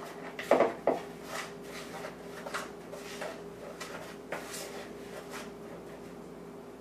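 A utensil stirring and scraping through a dry mix of almond meal, coconut flour and grated Parmesan in a mixing bowl, breaking up chunks. A few louder strokes come in the first second, then lighter, irregular scrapes that fade.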